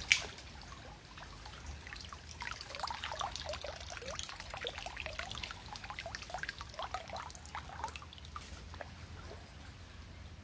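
Water sloshing and splashing around legs wading waist-deep through a muddy channel, in quick irregular gurgles that are busiest through the middle and thin out near the end. A single sharp knock right at the start is the loudest sound.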